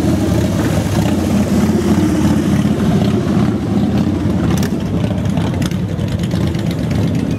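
A line of motorcycles, cruisers and a touring trike, riding past at low speed, their engines running with a steady, loud low drone.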